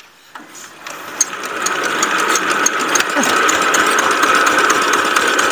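Kubota ER75 single-cylinder diesel engine catching and running up: it grows louder over the first two seconds, then settles into a steady, fast knocking beat. This is its first start after long disuse and several failed attempts.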